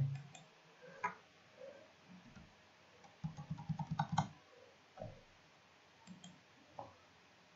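Computer keyboard keystrokes: scattered single taps, with a quick run of keys about three to four seconds in.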